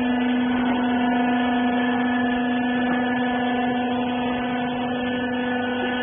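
Wiper rag baler's electric motor and hydraulic pump running, a steady hum with one strong low tone.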